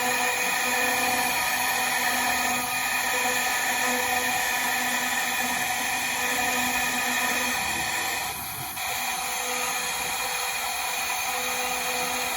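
A DIY CNC router's spindle running and carving wood, a steady high-speed whine of several tones over a hiss. The level dips briefly about eight seconds in, then carries on.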